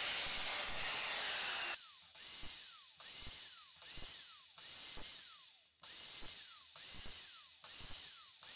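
Evolution R185SMS sliding mitre saw blade running at a depth stop, cutting the floorboard steadily at first. About two seconds in it turns into a run of short bites, roughly one a second, each starting sharply and dropping in pitch as the board is nudged into the blade to widen a shallow rebate channel.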